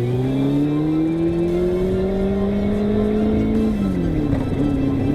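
Kawasaki ZZR400 motorcycle's inline-four engine accelerating, its pitch rising steadily, then dropping sharply at a gear change nearly four seconds in before climbing again.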